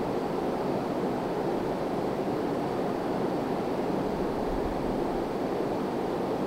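Two Emerson Heat Fan ceiling fans running, their spinning blades making a steady rush of moving air.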